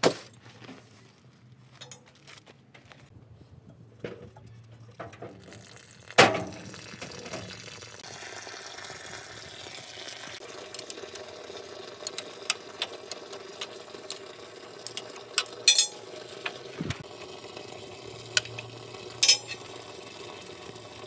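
A thin stream of water running down from the underside of an excavator and splashing onto the ground, steady from about eight seconds in, with scattered small clicks and drips. A single sharp knock comes about six seconds in, before the water starts.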